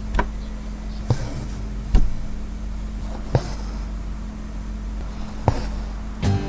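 Embroidery needle piercing fabric stretched in a hoop, with the floss drawn through after it: five sharp taps at irregular intervals, roughly one every second or two.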